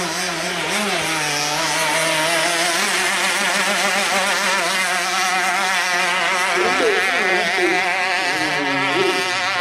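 Racing longtail boat's engine running flat out at high revs as the hydroplaning boat passes, steady but with its pitch wavering slightly, over the hiss of spray off the hull.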